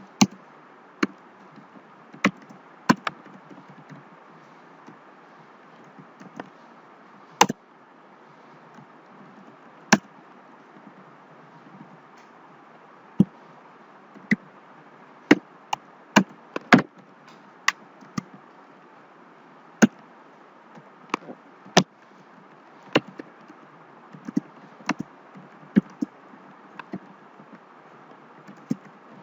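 Keys of a computer keyboard struck one at a time as code is typed, sharp separate clicks at an irregular pace, some pauses of a few seconds between them, over a steady faint hiss.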